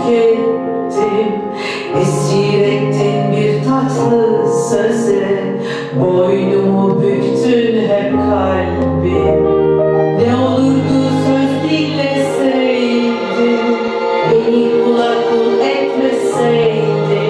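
A woman singing a song in long held notes over instrumental accompaniment with a steady bass line.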